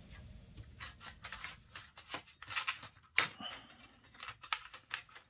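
Light irregular clicks and rustles of plastic laptop parts being handled, with one sharper click a little past three seconds in.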